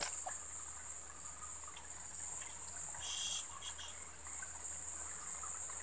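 Steady high-pitched drone of insects in swamp forest. A few faint clicks and a short chirp come about three seconds in.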